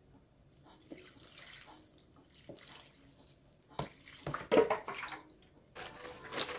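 Kimchi broth poured from a scoop over sliced vegetables in a plastic container, splashing, loudest about four to five seconds in. Near the end it gives way to a rustling with light clicks.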